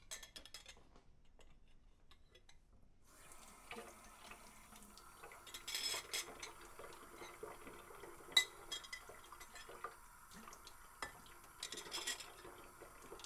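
A kitchen tap running into a sink, turned on about three seconds in, with dishes and cutlery clinking against each other; the sharpest clink comes about eight seconds in.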